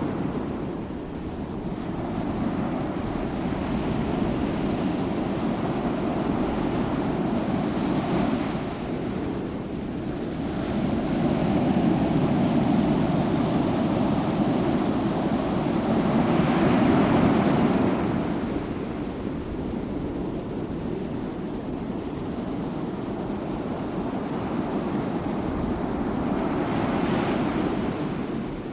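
Sea waves breaking and washing on the shore, a continuous surf that swells and fades several times, each surge lasting a few seconds.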